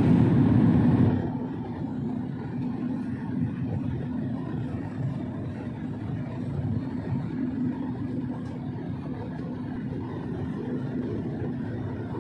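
Airliner cabin noise in flight: a steady rushing drone with a constant low hum, louder for about the first second.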